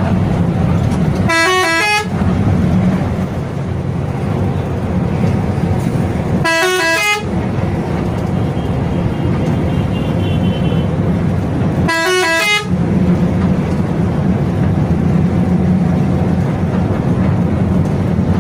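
Bus multi-tone musical horn (telolet type) sounding three short blasts about five seconds apart, each a quick run of notes lasting under a second, over the steady engine and road noise inside the moving bus cabin.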